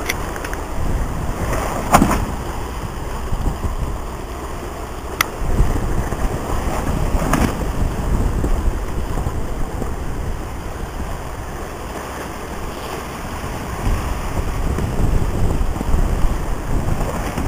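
Wind buffeting the microphone over the rush of water along the hull of a Moody 42 sailing yacht running goose-winged at about 7 knots. A few short sharp knocks come in the first half.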